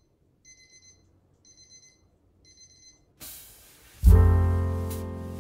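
A faint electronic alarm beeping in quick groups of four, about once a second, three times over. Then a short rush of noise, and about four seconds in, loud music with piano comes in.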